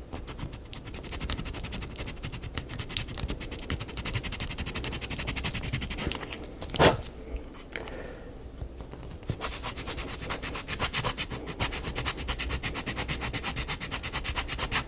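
Sanding a painted wooden marble-run part by hand, in quick back-and-forth strokes that rasp against the wood. About seven seconds in there is a single knock, and the sanding stops for a moment before starting again.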